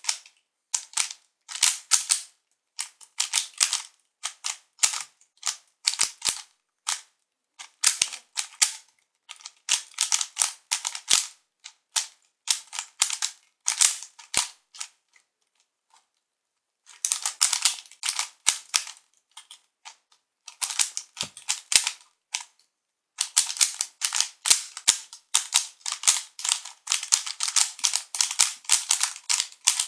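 Rubik's cube being turned rapidly during a speed solve: quick plastic clicking and rattling of the layers in bursts of a second or two with short pauses between. There is a longer pause about halfway, and near the end the turning runs almost without a break.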